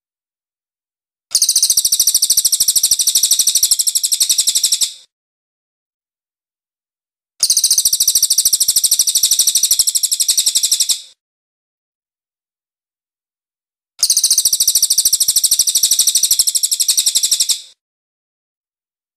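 Crested shrikejay (cililin) giving three long, rapid, high-pitched rattling trills of about three and a half seconds each, separated by silent gaps of about two seconds.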